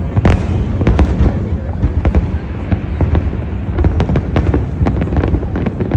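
Fireworks display: a rapid, continuous barrage of bangs and crackles, several a second, over a steady low rumble.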